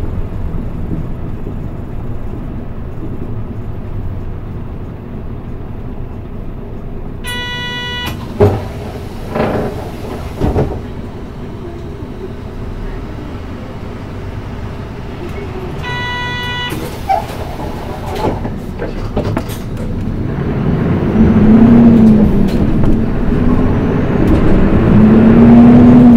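Mitsubishi Fuso Aerostar city bus's diesel engine running at low speed, heard from inside the cabin, while an electronic chime sounds twice and a few knocks rattle through. About 20 seconds in the engine grows louder and revs up, its pitch climbing and dropping twice as the bus accelerates through the gears of its manual gearbox.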